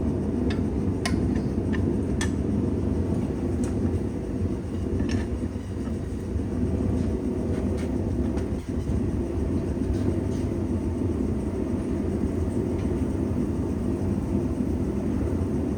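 Blacksmith's forge running with a steady low rushing noise while a piece of steel heats in the fire, with a few light metallic clicks in the first five seconds.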